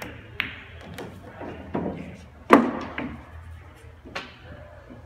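A pool shot: the sharp click of the cue tip on the cue ball, then ball-on-ball clicks, and a loud, heavier knock about halfway through as an object ball drops into a corner pocket, followed by a lighter click near the end.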